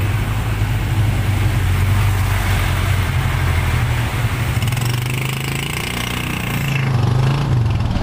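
Motorcycle engine of a tricycle idling steadily, heard from inside the sidecar, its pitch rising slightly near the end.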